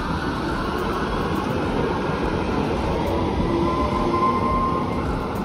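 Frankfurt street tram passing close by on street-running rails, a steady rumble of wheels and running gear. A short higher tone rises above it about four seconds in.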